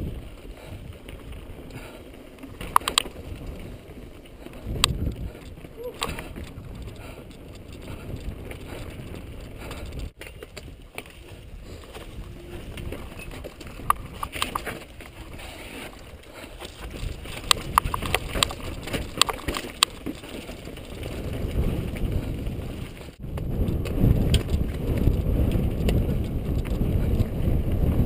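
Mountain bike riding fast down a rocky trail, heard from an action camera on the bike or rider: wind rumbling on the microphone with sharp clicks and rattles as the bike goes over rock. The rumble grows louder in the last third as speed picks up.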